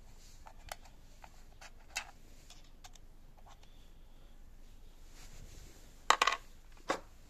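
Light clicks and taps from handling the drill set's hard plastic parts, then a sharp cluster of louder clicks about six seconds in and one more click a moment later.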